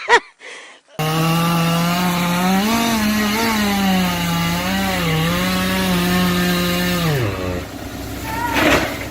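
Chainsaw running at full throttle in a cut, its pitch dipping and wavering as the chain loads in the wood, then dropping away as the throttle is released. Near the end comes a brief loud burst of noise.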